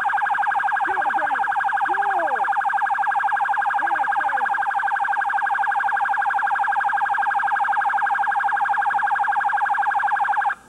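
Police car siren sounding a loud, rapid warble, with a few fainter lower swoops underneath; it cuts off suddenly near the end.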